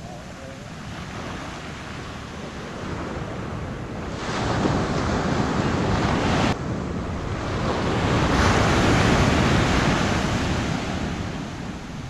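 Small surf waves breaking and washing up a sandy beach: one rush swells and cuts off suddenly about six and a half seconds in, then a second swells louder and eases off near the end.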